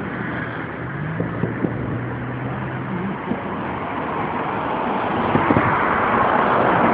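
Fireworks going off: many sharp pops and thumps over a continuous rumbling roar that grows louder toward the end, recorded on a phone microphone.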